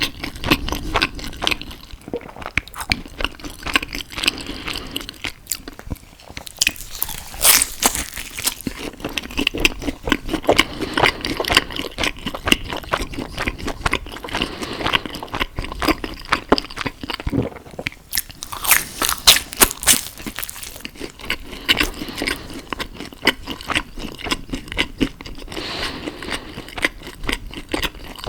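Close-miked eating sounds: a steady run of biting and wet chewing with crunchy bites, as pizza and pasta are eaten. Louder crunching clusters come about a quarter of the way in and again about two-thirds through.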